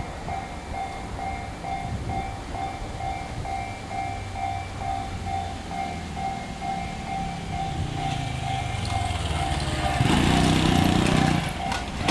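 Japanese level-crossing warning bell ringing in a rapid, even repeat while a train approaches. The train's rumble grows from about eight seconds in and is loudest for a second or two as it passes the crossing, with a sharp click near the end.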